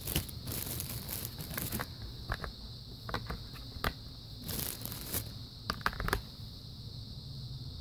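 Batteries being loaded into a weather radio's battery compartment by hand: a string of scattered plastic clicks and knocks with some rustling handling noise.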